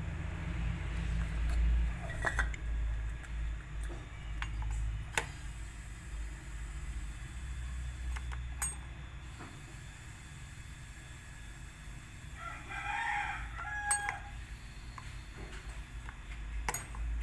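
A rooster crows once in the background about twelve seconds in. Several sharp clicks or taps sound at intervals, the loudest near the middle and the end, over a low rumble in the first few seconds.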